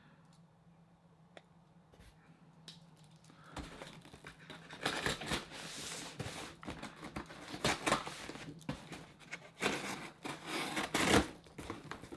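Shipping packaging being opened by hand: crinkling, rustling and tearing of paper and plastic wrapping, with small knocks of the box being handled. It starts about three and a half seconds in and comes in uneven swells.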